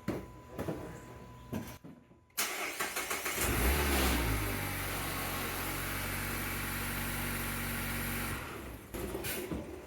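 Mazda MX-5 ND four-cylinder engine cranked and started about two and a half seconds in, with a brief rev flare as it catches. It then idles steadily for about four seconds and stops.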